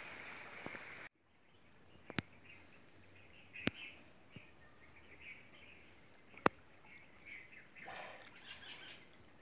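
Faint outdoor background of birds and insects chirping, broken by three sharp clicks about two, three and a half, and six and a half seconds in.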